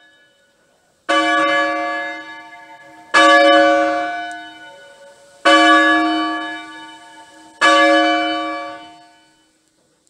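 A church bell struck four times at a slow, even pace, about two seconds apart; each stroke rings out with a cluster of bright tones and dies away before the next.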